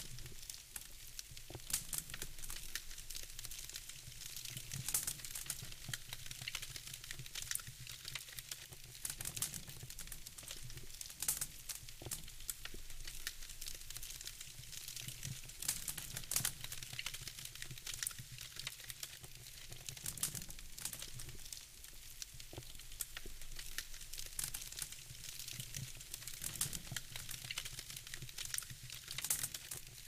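Wood fire crackling in a fireplace: frequent irregular snaps and pops over a soft steady hiss and a low rumble.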